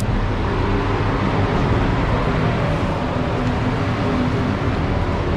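Steady mechanical drone of a spray booth's fans running, with a low hum and an even rushing noise.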